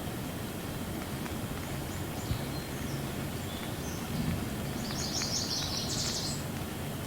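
Steady rain falling, an even low rush with faint scattered ticks. A bird chirps a quick run of high notes about five seconds in.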